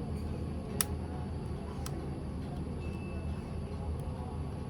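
A few sharp, separate clicks from a mechanical keyboard being handled, the first and loudest about a second in, over a steady low background rumble.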